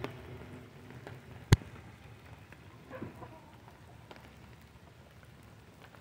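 Steady rain falling on the yard and trees, with a single sharp tap about a second and a half in.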